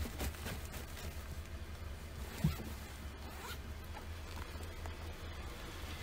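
Backpack zipper pulled in several quick rasping strokes, with a soft thump from the bag being handled about two and a half seconds in.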